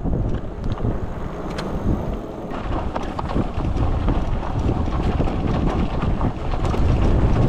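Wind buffeting the microphone of a camera on a moving e-bike, a heavy rumble that grows stronger about two and a half seconds in as the bike rides a rough grass trail. Frequent clicks and rattles run through it.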